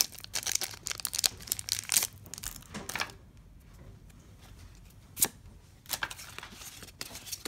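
Plastic foil wrapper of a Pokémon booster pack crinkling and tearing open for about the first two seconds. Then quieter handling of the cards, with a few separate soft clicks.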